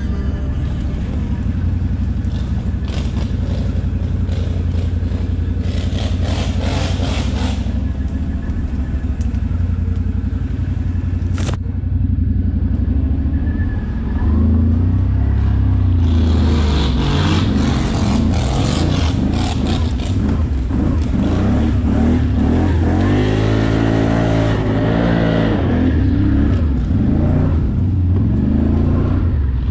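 An ATV engine runs steadily, its revs rising and falling several times in the second half as the quad climbs and drops over the terrain. A single sharp knock comes about eleven seconds in.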